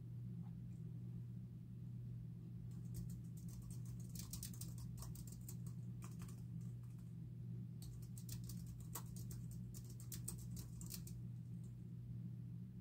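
Typing on a computer keyboard: two runs of quick key clicks, starting about three seconds in with a short pause near the middle, over a steady low hum.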